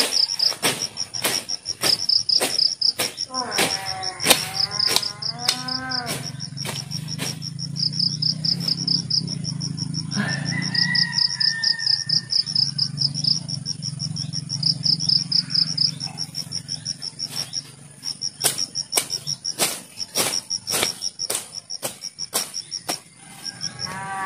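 Crickets or similar insects chirping steadily in a fast, even pulse, with many sharp clicks at about one or two a second. A cow moos a few seconds in and again at the very end.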